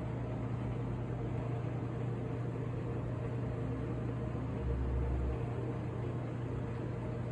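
Steady mechanical hum with a strong low tone and a hiss, like a motor or fan running, with a brief low rumble about five seconds in.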